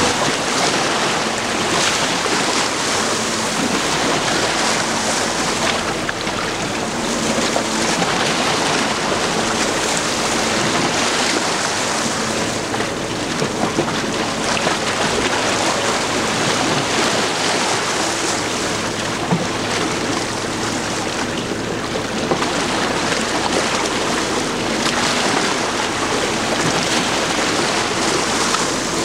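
Wind buffeting the microphone and choppy water lapping, swelling and easing every few seconds, with a faint steady low engine hum underneath.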